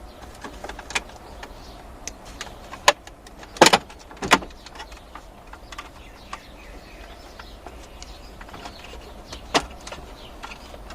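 Plastic dashboard trim of a 2010 Toyota FJ Cruiser being pried and pulled out: scattered sharp clicks and knocks of clips and plastic, loudest in a cluster about four seconds in and again near the end.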